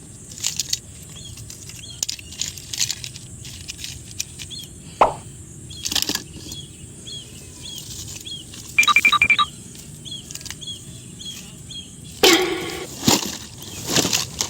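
Plastic toys being handled, with scattered clicks and knocks and louder rustling knocks near the end. A short run of rapid electronic beeps comes about nine seconds in, and faint high chirps repeat throughout.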